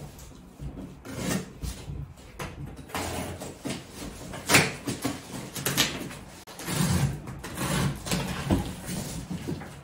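Cardboard parcel being opened by hand: irregular scraping, tearing and rustling of tape and cardboard, with a few sharp knocks, the loudest about halfway through.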